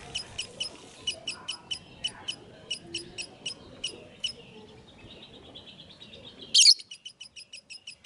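Fischer's lovebird chirping: sharp, high chirps in quick runs of about five a second, broken by short pauses. A brief, loud, harsh burst comes about six and a half seconds in.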